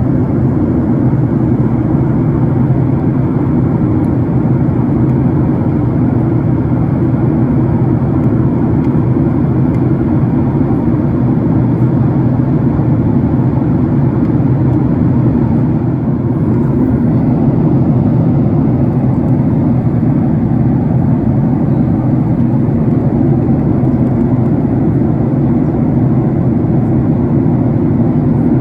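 Steady jet airliner cabin noise: engine and rushing-air noise heard from inside the passenger cabin, deep and unchanging.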